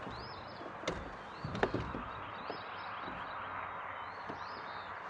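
A songbird repeating short, arched, high whistled notes about once a second over a steady background hiss, with two sharp knocks a little after a second in, the second the louder.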